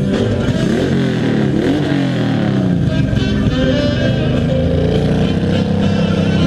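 Motorcycle engine revving up and down as the bike pulls away and rides off, with the pitch climbing and dropping twice, over live rock band music.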